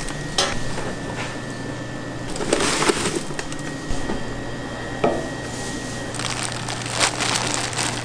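Dumpling-making work: a few sharp knocks among bursts of scraping and rustling, over a steady low hum.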